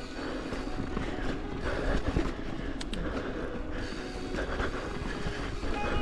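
Mountain bike rolling over rocky singletrack: tyres rumbling and the bike rattling with many small knocks, with background music underneath.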